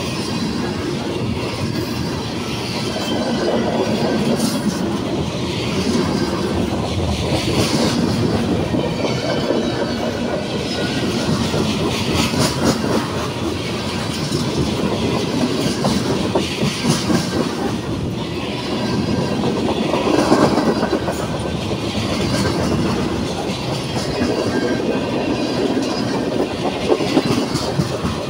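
Freight cars of a CSX mixed manifest train rolling past at close range: covered hoppers and tank cars. Steady wheel-on-rail noise carries a clickety-clack of wheels, and it swells and eases every few seconds as the cars go by.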